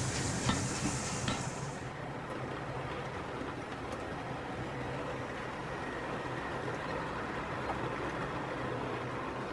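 OO gauge model train, a Battle of Britain class locomotive hauling Pullman coaches, running round a curve with a steady rolling rumble. A high hiss and a few sharp clicks die away about two seconds in.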